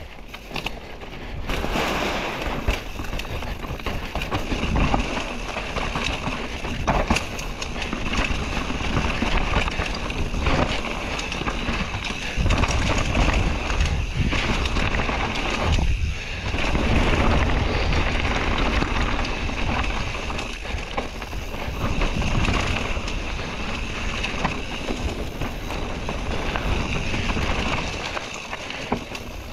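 Mountain bike ridden fast down a dirt trail: wind buffeting the microphone over the steady clatter and knocking of tyres and bike on rough ground.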